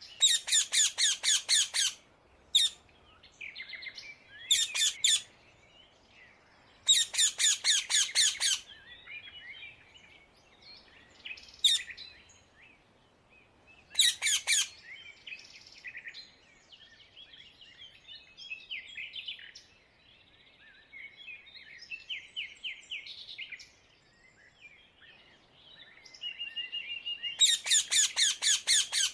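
Rose-ringed (Indian ringneck) parakeets calling: several loud bursts of rapid, repeated screeching calls, about five a second, with softer chattering calls in between.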